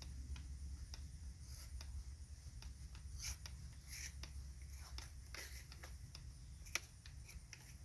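Faint scattered clicks and light scraping of small objects being handled, over a low steady hum.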